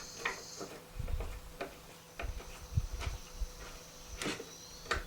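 Scattered light clicks and knocks, with a few low thuds, as woodworking clamps are handled and set against a freshly glued cabinet panel.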